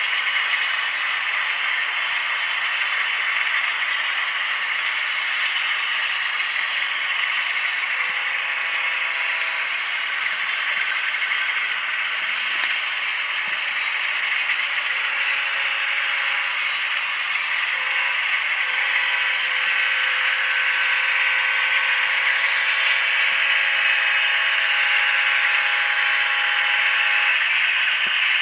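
HO scale Alco RS-11 model locomotive running on the layout track: a steady whirring rattle of its gears and wheels, mixed with the diesel engine sound from its TCS WOW Sound decoder speaker. A steady hum of several tones joins about eight seconds in and stops near the end.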